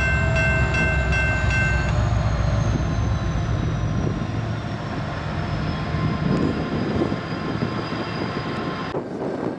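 Freight train led by a BNSF SD70MAC and Norfolk Southern diesel locomotives pulling away, with loaded coal cars rolling behind. The locomotive horn cuts off about two seconds in, and the diesel rumble grows fainter as the train recedes.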